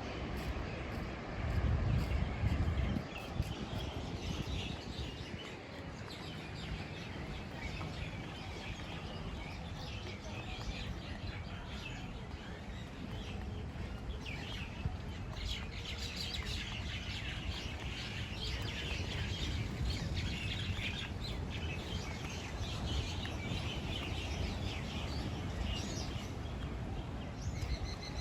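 Many small birds chirping and chattering together, busiest in the second half. A gust of wind buffets the microphone about two seconds in.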